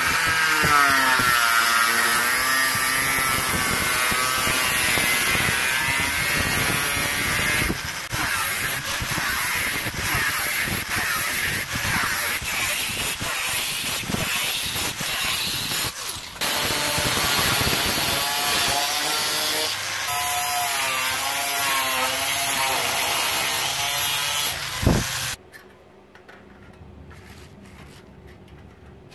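Corded angle grinder with a thin cutting disc slicing slots into a sheet-metal strip, the motor whine wavering and dipping as the disc bites the metal. It stops briefly a little past halfway, starts again, and is switched off near the end, its whine falling as it winds down.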